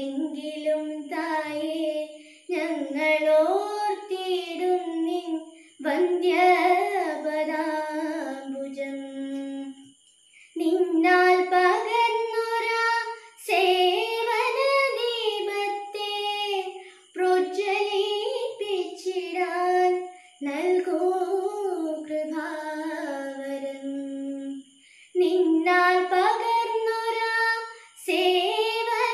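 A single high voice singing a melodic song unaccompanied, in phrases of a few seconds each separated by short breaths.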